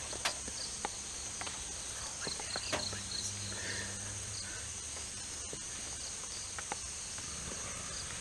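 Steady high-pitched chorus of forest insects, with scattered sharp clicks and snaps over it.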